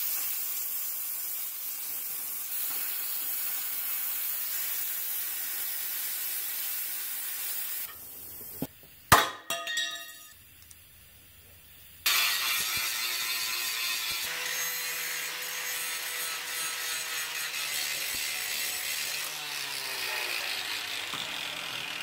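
Hand-held cutoff tool cutting through a steel frame body mount in a steady grinding hiss. About nine seconds in, the cutting stops with a sharp metallic clank and a brief ring. After a short pause, a grinder runs again on steel.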